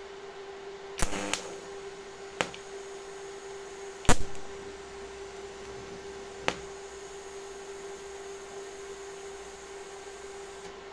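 TIG welding arc on small stainless-steel parts: a steady buzzing hum, broken by a few sharp clicks, the loudest about four seconds in.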